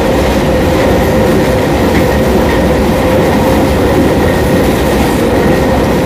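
CPTM Série 4400 electric multiple unit running on the rails: a steady traction-motor whine held at one pitch over continuous wheel-and-rail rumble.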